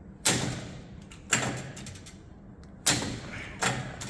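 Hand pop rivet gun squeezed repeatedly to pull a long-stemmed rivet through: four sharp metal clacks, about a second apart.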